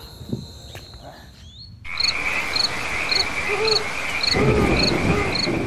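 Frogs croaking in a rhythmic chorus over a steady high buzz, starting abruptly about two seconds in. A regular call repeats about three times a second, with deeper croaks underneath.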